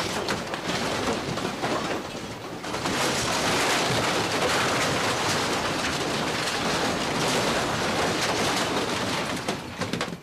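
Office shelves, desks and equipment rattling and clattering together as the building shakes in a strong earthquake: a dense, continuous din that grows louder about three seconds in and eases off near the end.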